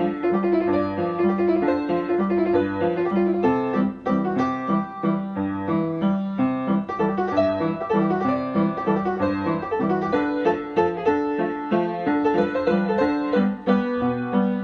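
Piano music playing a quick, busy run of notes over a repeating low bass line.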